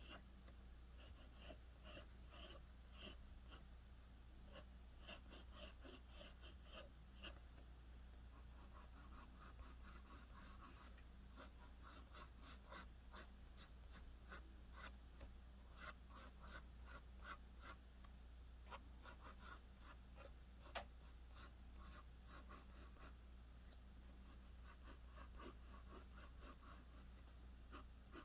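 Pencil scratching on paper in quick, short strokes, several a second, coming in runs with brief pauses: pencil strokes laying in strands of hair. A faint steady low hum sits underneath.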